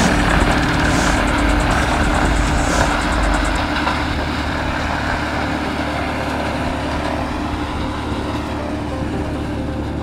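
Tractor-mounted PC270-SEH wood chipper running at speed with the tractor engine, steadily chipping leafy birch branches fed into its hopper. A deep hum drops away about a third of the way in, and the sound eases slightly towards the end.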